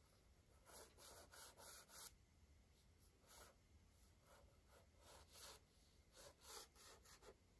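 Crayon rubbing on paper in short, faint strokes, coming in quick runs of three to five with short pauses between.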